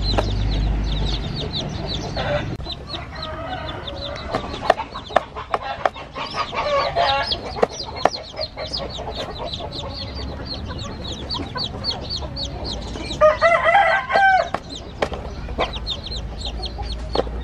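Newly hatched chicks peeping steadily, thin high peeps several a second, with an adult chicken's lower, longer calls breaking in about 2, 6 and 13 seconds in.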